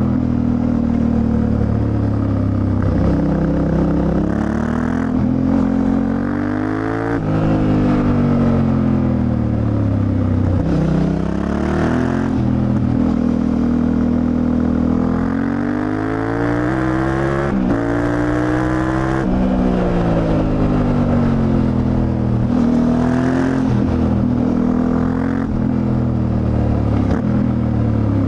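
Yamaha Ténéré 700's parallel-twin engine under way, its pitch climbing as it accelerates and falling back as it slows, several times over, with a few sudden breaks in pitch at gear changes.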